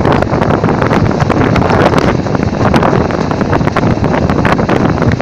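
A passenger train running along the track, heard through heavy wind buffeting the microphone held at an open carriage window. The noise is steady and loud, broken by many short knocks and gusts.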